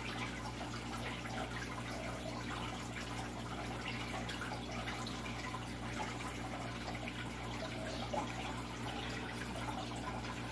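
Steady trickling and bubbling of aquarium water, with a low steady hum underneath.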